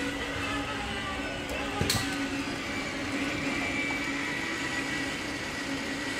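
Steady mechanical whir with several held, slowly drifting tones, and a single sharp click about two seconds in.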